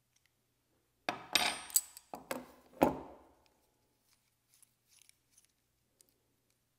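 Small metal parts clattering and clinking against each other and a hard surface: four or five sharp, ringing knocks starting about a second in, followed by a few faint light clicks.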